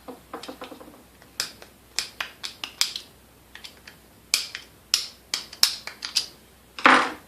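Small metal parts and tools clicking and clinking against each other in irregular taps, about a dozen strikes, with a short scraping rattle near the end.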